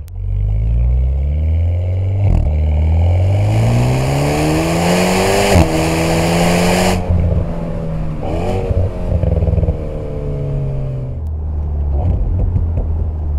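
Alpine A110's 1.8-litre turbocharged four-cylinder through a QuickSilver Sound Architect aftermarket exhaust, heard from inside the cabin, accelerating hard through the gears. The revs climb, dip at a quick upshift about two seconds in, and climb again to a second upshift just before six seconds. The throttle lifts about a second later, and the engine runs on at a steady pace with a brief rise in revs around eight and a half seconds.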